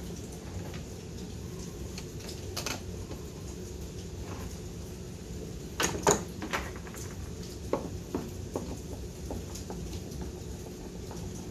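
Light clicks and clinks of small metal parts and tools being handled on a workbench during a carburetor rebuild, the loudest a quick cluster of clicks about six seconds in, over a steady low background hum.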